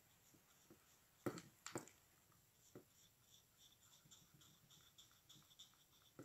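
Faint scrubbing of a damp paintbrush on watercolour paper, washing paint out of an oval area, with two light clicks a little over a second in.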